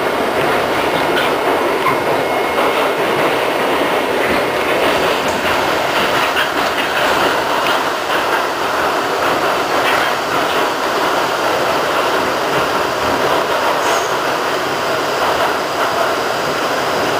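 Westinghouse R68 subway car running at steady speed, heard from inside the car: a loud even rumble of wheels on rail with scattered faint clicks.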